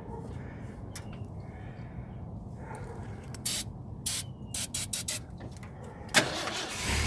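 Aerosol can of starter fluid sprayed in several short spurts into the carburettor of a 1979 Ford truck engine that will not start without it, over a low steady rumble. A longer, louder hiss starts near the end.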